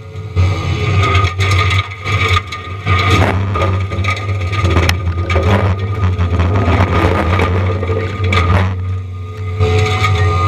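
Diamond Mower forestry mulching head on a John Deere 333E compact track loader grinding pine wood: a steady low diesel drone under a rapid run of cracks and splintering knocks as the teeth chew through trunks and branches.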